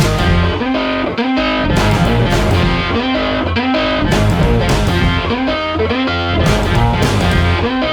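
Background rock music with a distorted electric guitar over a steady beat.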